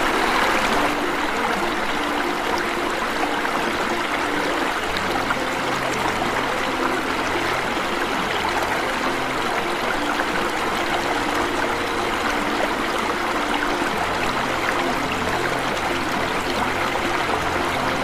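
Water rushing and splashing steadily over a small waterfall, a constant even sound.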